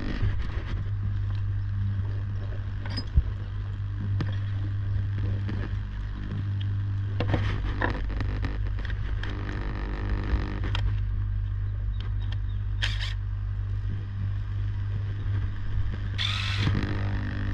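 A steady low hum from machinery or electrical equipment runs throughout, with scattered clicks and scrapes from tools being worked by hand.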